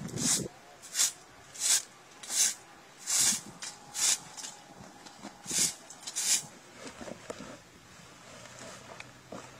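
Hand broom of grass bristles sweeping a hard yard: eight short swishes, roughly one every 0.7 seconds with a brief pause after the sixth, then the sweeping stops about six and a half seconds in.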